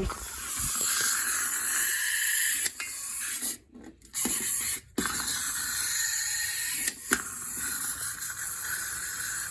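Clockwork motor of a wind-up flipping ladybug toy whirring, cutting out briefly about three and a half seconds in and again near five seconds before running on, with an occasional click.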